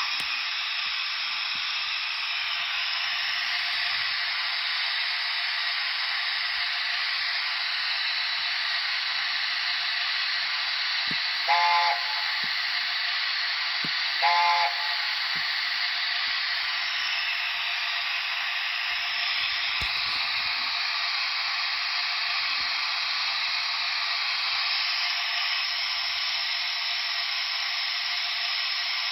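Sound decoder of a Dapol A4 Mallard model locomotive playing a steady steam hiss, with two short whistle blasts about eleven and fourteen seconds in. The hiss has little bass, as from the model's small speaker.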